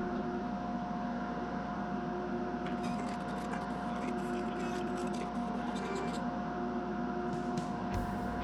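Wood lathe running steadily with a constant hum as the pen blank spins, with light scratchy rubbing against it from about three to six seconds in.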